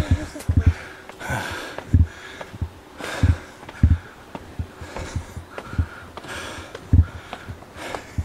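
A man breathing hard, with a heavy breath about every second and a half, over the thuds of his footsteps climbing concrete steps.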